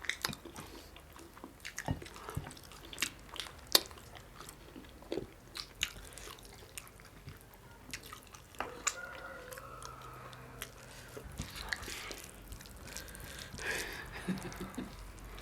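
Close-miked chewing and biting of food, with irregular wet clicks and smacks of the mouth.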